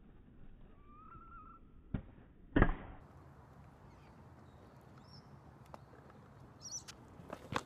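Stunt scooter knocking against a concrete kerb during a trick: a sharp click, then a loud clack about two and a half seconds in, and a few lighter knocks near the end. A short chirp about a second in, over quiet outdoor background.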